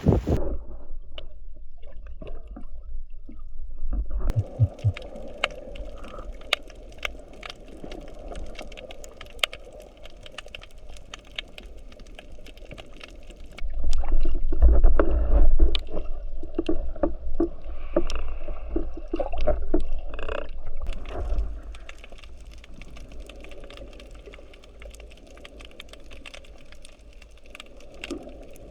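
Water sloshing and gurgling with many scattered sharp clicks, over a steady low rumble. It swells loudest about halfway through and settles quieter for the last few seconds.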